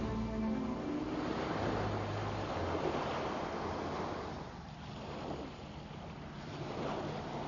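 Sea surf washing onto a sandy beach: a steady rush of breaking waves that eases in the middle and builds again near the end.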